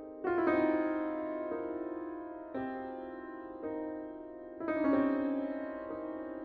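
Slow, soft piano music: notes and chords struck about once a second, each left to ring and fade, with the fullest chords just after the start and about two-thirds through.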